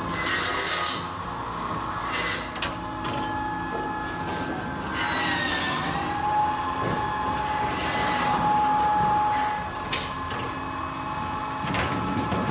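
Pezzolato PROFESSIONAL 2.0 firewood disc processor running with a steady whine. Several spells of rasping wood noise come from logs being cut and moved through the machine, with a few sharp knocks of cut rounds dropping down the chute.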